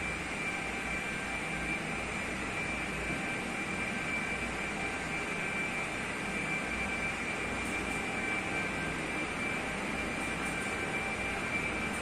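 A Roska 56-inch decorative ceiling fan running, its blades giving a steady whooshing air noise, with a thin steady high tone and a low pulsing hum under it.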